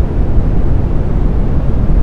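Steady synthesized brown noise: a deep, even rumbling hiss with most of its energy in the low end, thinning out toward the highs, with no tones or changes.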